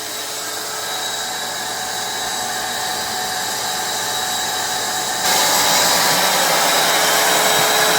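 Bee vacuum's electric motor running steadily with a whine while sucking up honeybees, jumping louder and brighter about five seconds in.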